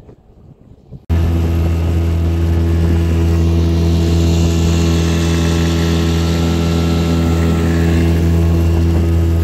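Motorboat engine running at a steady speed while the boat is underway, with rushing water and wind over it; it cuts in suddenly about a second in, after a faint outdoor background.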